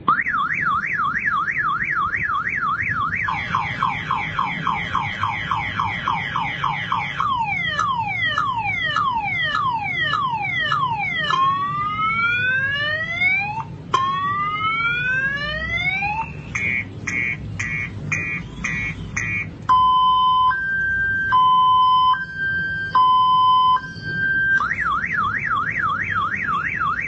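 Motorcycle alarm siren cycling through its tone patterns: a fast warble, a wider warble, repeated falling sweeps, then rising sweeps, rapid beeps, and a two-tone high-low alternation, before going back to the warble near the end.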